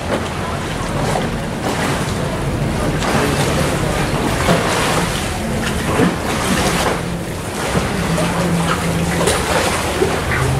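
Canal water lapping and splashing against a gondola, with wind rushing over the microphone and a faint low hum coming and going.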